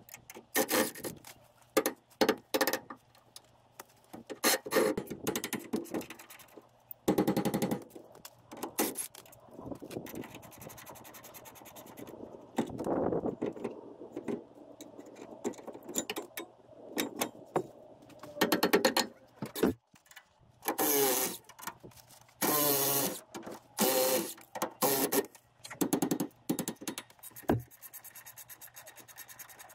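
Hand tools and a cordless power tool working on a pickup truck's rear axle and brakes: a string of separate metal clinks, clicks and scrapes, broken by several short runs of the power tool lasting a second or two.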